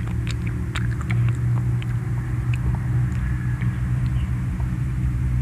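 A steady low motor hum, with small clicks and smacks of children chewing berries and picking them off a plate.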